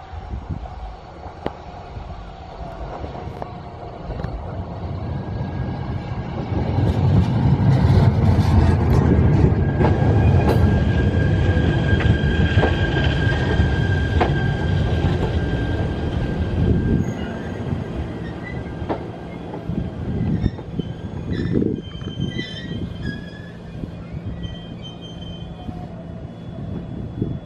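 Shinano Railway SR1-series electric train pulling into a station. Its rumble builds as it approaches and is loudest as it runs past, with a high steady squeal as it slows. It then eases off as the train comes to a stop, with a few clicks near the end.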